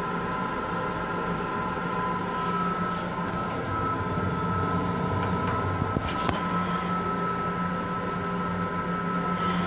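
Long Island Rail Road M7 electric railcar running, heard from inside its restroom: a steady rumble with a constant whine, and a few light clicks about a third of the way in and again past the middle.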